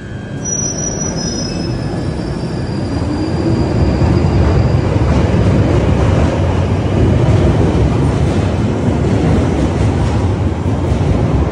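London Underground 1995 Stock tube train pulling out of the platform and gathering speed. Its rumble grows louder over the first four seconds, then holds steady as the carriages run past.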